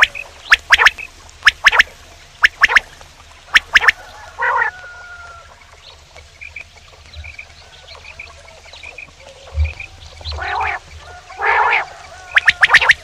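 Male quail calling: sharp, clipped notes in quick pairs and triples about once a second, with raspy, gargling notes in between. The calls thin out to faint short chirps in the middle, then two louder raspy notes and a fast run of clipped notes near the end.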